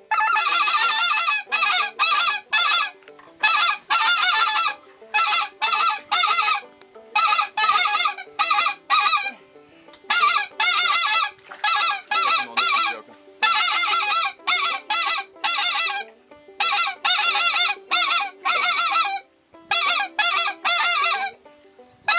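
Handheld goose call blown in quick runs of short, loud honks, two to five notes at a time with brief pauses between the runs, calling to passing geese.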